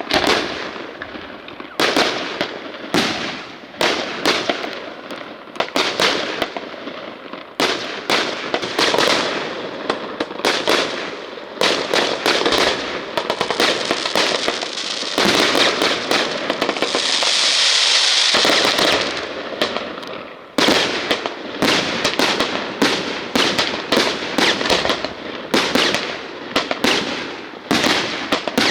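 Fireworks going off: a rapid, continuous string of bangs and crackles. About two thirds of the way in, a sustained hiss stands out for a few seconds.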